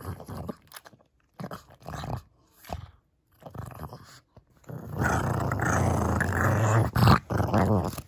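Pug growling over a dried bone chew: one long, low, continuous growl for about three seconds, starting about five seconds in, the sign of a dog guarding its chew. A few short, scattered sounds come before it.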